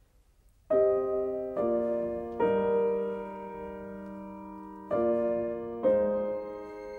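Background piano music: slow, sustained chords struck about every second, each ringing and fading, after a brief near-silent start.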